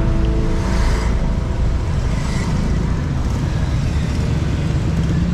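City road traffic: cars and other motor vehicles running past, a steady low rumble with tyre hiss that swells as vehicles go by.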